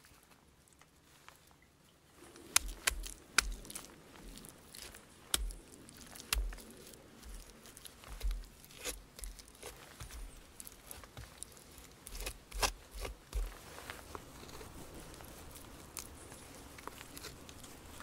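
Wet soil and mud being dug with a small shovel and packed by hand: irregular scrapes, crunches and soft thuds. They begin about two seconds in and thin out after about thirteen seconds.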